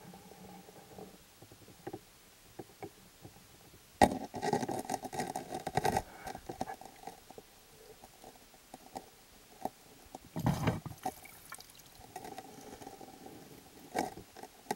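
Bubbling underwater, heard through an underwater camera, coming in separate bursts several seconds apart; the longest lasts about two seconds. Small clicks and ticks are scattered between the bursts.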